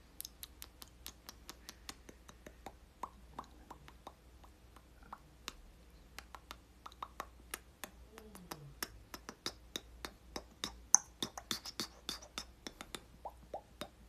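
A man making a string of mouth pops and clicks with his lips and tongue, about four a second and growing denser toward the end, some pops carrying a short pitched note. A brief falling hum comes about eight seconds in.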